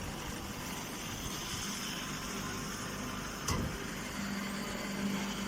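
A machine running steadily. A low hum joins about four seconds in, and there is one sharp click about three and a half seconds in.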